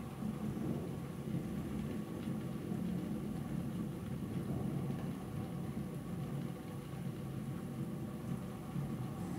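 Distant thunder rolling in a continuous low rumble that swells and eases slightly but never stops, with no sharp crack.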